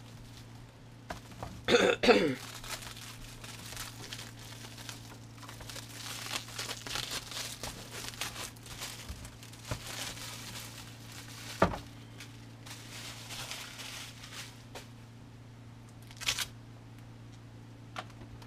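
Clear plastic wrapping crinkling and tearing as it is pulled off a replica championship belt. There is a short pitched sound about two seconds in and a sharp knock about halfway through.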